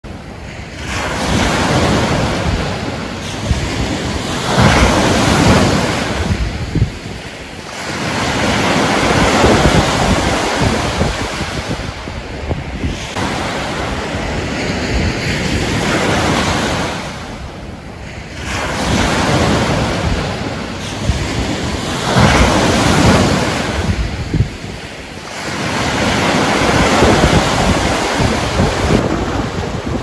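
Waves washing onto a shore, surging and receding every five seconds or so, with wind.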